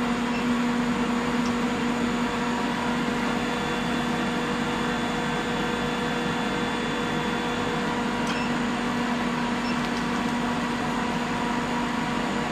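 Forge Force induction heater running with a steady hum while its flexible coil extension heats a steel skewer.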